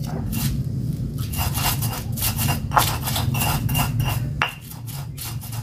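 Stone pestle (ulekan) grinding and scraping red chillies, garlic and salt in a black stone mortar (cobek), in rhythmic strokes about three a second, softer near the end.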